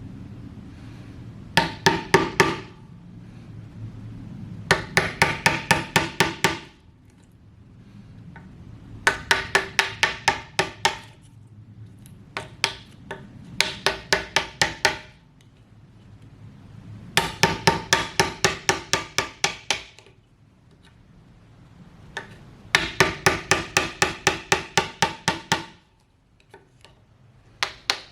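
A wood chisel being driven into a 6x6 timber with quick hammer blows, squaring out a drilled through-mortise. The blows come in bursts of about six to twelve, roughly five a second, with pauses between, and each blow rings.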